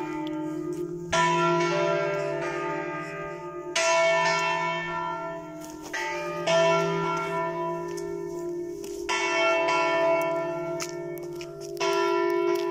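Three bells of a five-bell church peal swung full circle (rung 'a distesa'), clanging over a continuous ringing hum, with a heavy strike about every two and a half seconds. This is the call to the weekday Mass.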